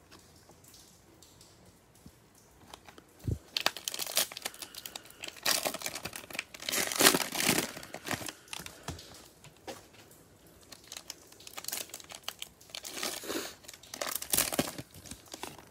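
Plastic cello-pack wrappers of Prizm baseball cards crinkling and crumpling as they are handled. After a soft thump about three seconds in, the crinkling comes in two long spells, loudest about seven seconds in.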